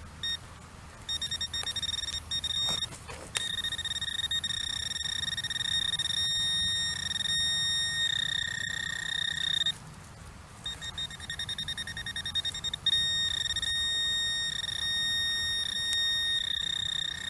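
Metal detector sounding a steady, high-pitched electronic tone over buried metal. It stutters on and off at first, then holds, breaks off for about a second near the middle, and comes back with brief dropouts. The detectorist suspects the target may be nails.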